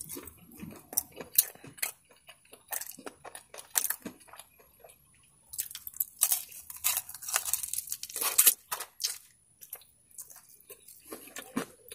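A person biting and chewing a fried chicken wing: crisp crunches and chewing in irregular bursts, thickest in the middle, with a short lull about ten seconds in.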